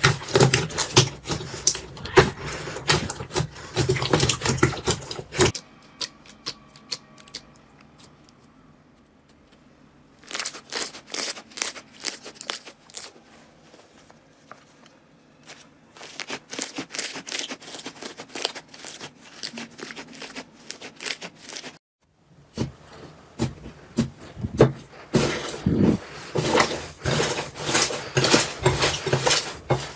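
Slime being squeezed and pressed by hand, giving rapid, irregular crackling clicks and pops. The sound thins out after about five seconds, picks up again, stops briefly for a moment about two-thirds through, then resumes.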